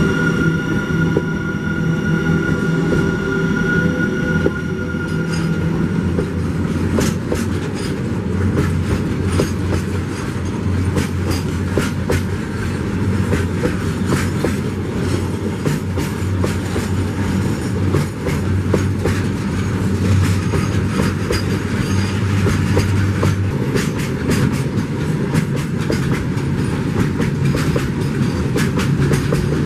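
Freight train passing at speed behind an Alstom WAG-12B electric locomotive. For the first five seconds there is a steady whine of several tones from the locomotive as it goes by. After that, a long rake of covered freight wagons rumbles past, its wheels clacking rapidly and irregularly over the rail joints.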